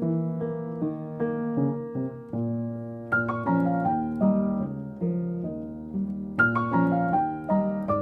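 Background piano music: a steady run of notes over chords, growing fuller about three seconds in and again near the end.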